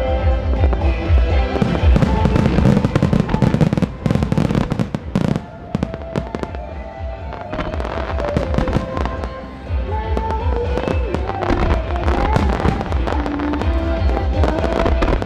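A starmine fireworks barrage: many shells bursting in quick succession with crackling, thinning out for a few seconds midway, over loud music with a pulsing bass beat and a melody line.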